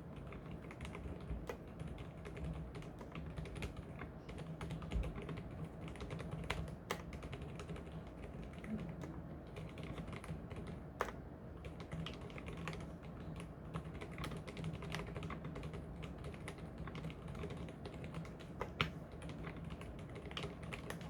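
Typing on an Mstone mechanical keyboard with low-noise (silent) milky switches of 45 g: a steady run of quiet keystrokes, with a few sharper, louder key hits here and there.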